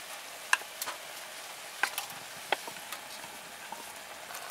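Bacon, onions and vegetables frying in a Dutch oven: a steady sizzle with a few sharp pops in the first few seconds.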